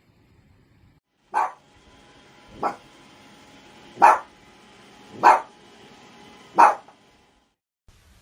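A dog barking five times, single barks about one every second and a bit, evenly spaced.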